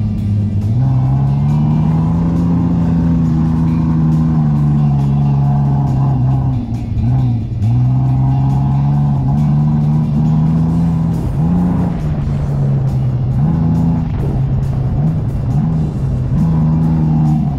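Off-road SUV's engine revving hard as it drives through soft dune sand, its pitch rising and falling with the throttle and dipping briefly about seven and twelve seconds in.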